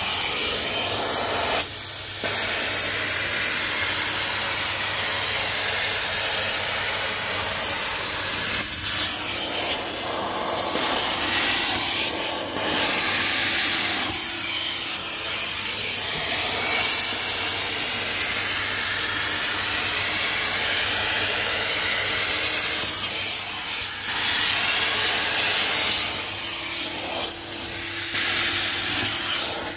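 Carpet extractor's hand tool drawn stroke by stroke across carpeted stairs: a loud, steady rushing hiss of suction and spray that shifts and dips every few seconds as the tool moves and lifts between strokes, over a faint steady hum.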